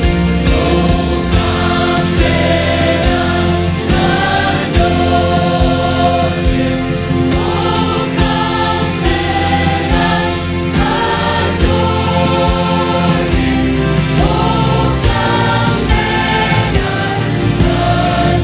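Church choir singing a Christmas song in sustained, gliding notes, accompanied by a band with a steady bass and drum beat.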